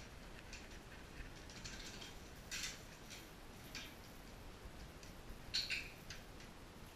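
A dog's claws clicking and scuffing on a hardwood floor as it runs out to fetch a ball and trots back, with a few louder scuffs about two and a half seconds in and again near the end.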